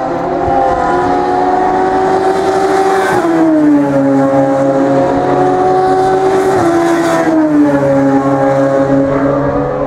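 Race car engine at full throttle, its pitch climbing steadily and then dropping sharply on an upshift about three seconds in and again about seven seconds in.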